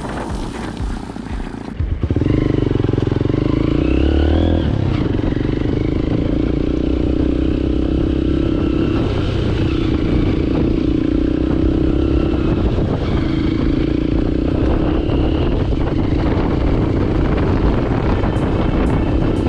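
Hero Impulse single-cylinder motorcycle engine running steadily under way, its pitch shifting slightly. Wind noise on the microphone fills the first couple of seconds.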